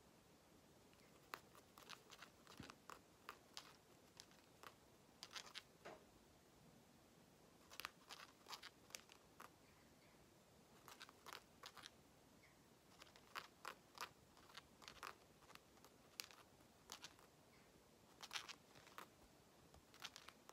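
Cockatiel's beak clicking as it nibbles, soft sharp clicks coming in quick clusters of three to six with short pauses between.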